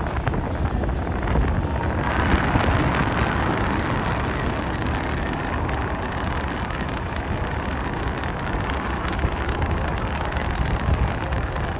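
Wind buffeting the phone's microphone over a steady rumbling noise, with a broader hiss that grows louder about two seconds in and holds.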